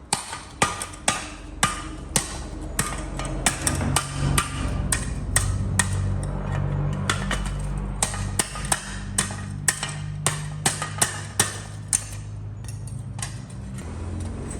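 Hammer blows on the steel of a hoe blade, sharp metallic strikes at about two a second in an uneven rhythm, drawing the metal thinner. A steady low hum runs underneath from about four seconds in.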